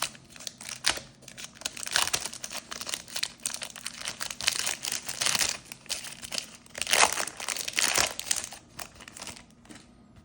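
Trading card pack wrappers being torn open and crinkled by hand, in irregular bursts of rustling that die down near the end.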